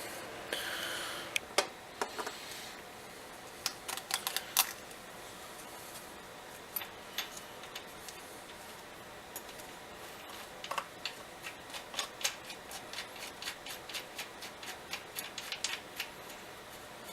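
Scattered light clicks and taps of small metal parts being handled and fitted, with a short scraping rustle near the start and quicker clicking, about two or three a second, later on.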